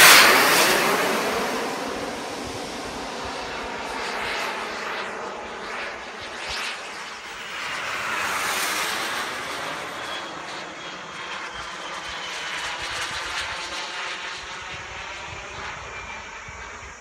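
Model jet's JetsMunt M70XBL turbine whining as the L-39 makes a fast close pass at the start, loudest as it goes by with its pitch dropping, then fading into the distance. It swells again about eight to nine seconds in, and a faint high whine falls slowly in pitch near the end.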